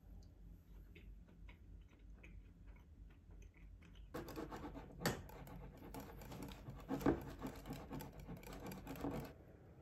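After a few seconds of faint scattered clicks, a wire whisk beats batter in a glass bowl from about four seconds in: a quick, even run of clinks and swishes with a couple of sharper knocks against the bowl, stopping about half a second before the end.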